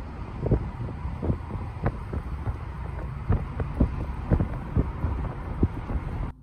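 Moving car's road and wind noise: a steady low rumble broken by irregular short thumps and buffets. It cuts off suddenly near the end.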